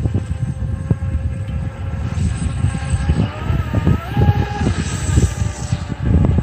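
High-pitched whine of a Volantex Vector SR48 RC racing boat's brushless motor running at speed, shifting up in pitch a few seconds in as the throttle changes, over a heavy low rumble.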